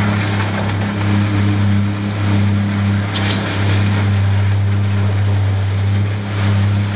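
Steady engine drone from the concrete-placing machinery on a slab pour, the pump and the petrol-engined vibrator, with a brief sharp clatter about three seconds in.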